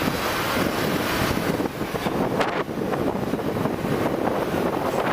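Wind buffeting the microphone while riding a scooter, with the rush of the ride and road noise underneath.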